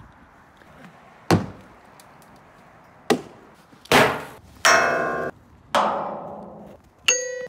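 Six sharp hits one after another, a hockey puck striking hard objects: some dull knocks, others metallic clangs that ring on with several tones and die away.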